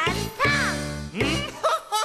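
Children's TV show music with a voice exclaiming: one long note that swoops down in pitch about half a second in, then short vocal bursts near the end.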